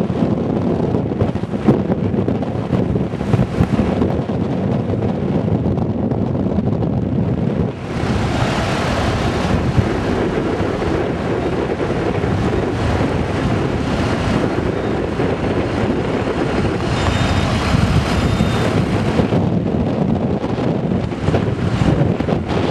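Strong wind buffeting the microphone, a steady low rumble of noise. About eight seconds in a stronger gust adds more hiss for some ten seconds before easing again.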